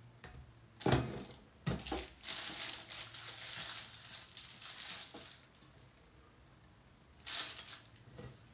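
A spatula knocks twice against a steel mixing bowl, then a disposable plastic piping bag crinkles and rustles for a few seconds as thick cream is scraped into it, with one more short rustle near the end.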